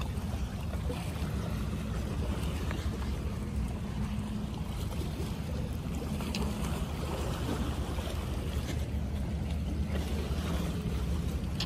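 Seaside ambience: a steady low rumble and hum, with faint water lapping against the shore rocks.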